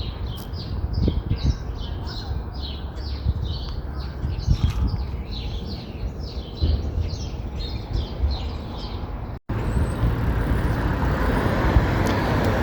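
A bird chirping over and over, about two chirps a second, over a low rumble of street traffic. After a short break about nine seconds in, steady, louder traffic noise.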